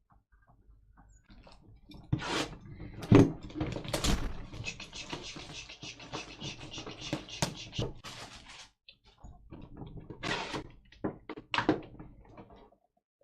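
Packaging of a trading card box crinkling and rustling as it is unwrapped and opened, with a few knocks and thunks of the box being handled near the end.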